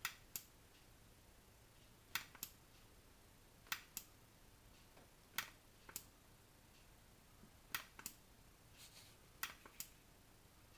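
Trigger of an electric hot stapler plastic welder clicking as it is pulled and let go, about six times, each time a quick pair of clicks about a second and a half apart from the next. The welder is dead: the trigger clicks but the tool does not heat or weld.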